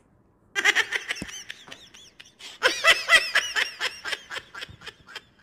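A person laughing in a high-pitched giggle in two bursts, the second louder and longer, tailing off into short, faint breaths of laughter.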